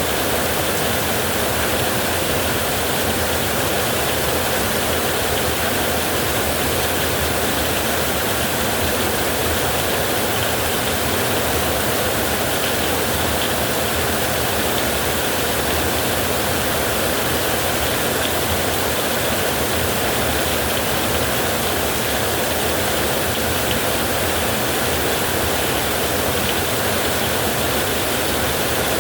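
Creek water flowing in a steady, even rush, without breaks or changes.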